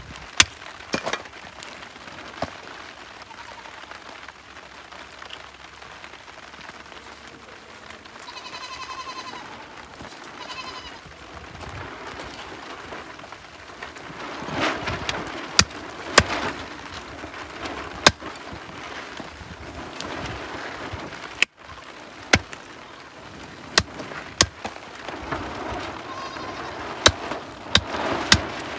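A knife chopping goat head meat on a wooden stump: scattered sharp knocks, more frequent in the second half, over a steady hiss. A brief high animal call sounds twice near the middle.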